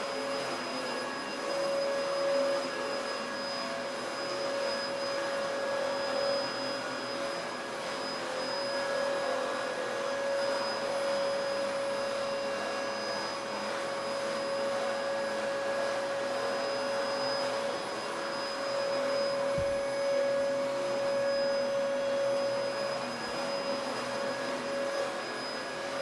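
Vacuum cleaner running steadily: an even rush of air with a constant mid-pitched motor tone and a faint high whistle above it.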